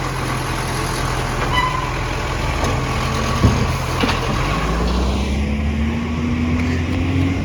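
Garbage truck diesel engine with an exhaust leak running steadily, then revving up with a steadily rising note from about halfway through, as if pulling away. A single sharp knock comes just before the rev-up.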